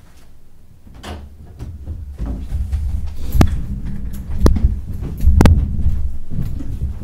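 Footsteps and bumps on a wooden floor, heard as low thuds and rumbling from about two seconds in. Three sharp knocks stand out at about three and a half, four and a half and five and a half seconds.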